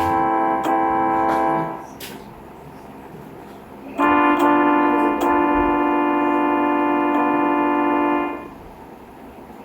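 Train air horn sounding a steady multi-note chord in long blasts: one blast ends about two seconds in, and a second, about four seconds long, starts about four seconds in.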